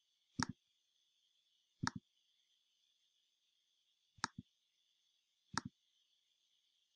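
Computer mouse clicking four times, a second or more apart, each a quick double tick of press and release, over a faint steady hiss.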